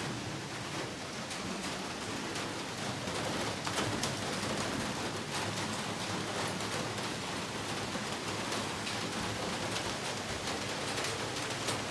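Steady rain falling, with many small drop ticks through a constant hiss.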